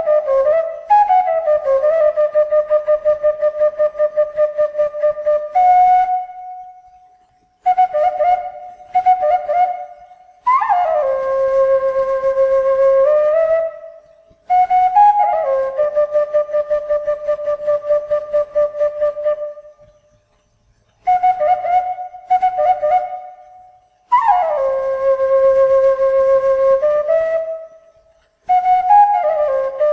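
Background music: a solo flute playing a slow melody, one note at a time, in phrases of a few seconds separated by short pauses. The notes glide down into long held tones with a fast, wavering vibrato.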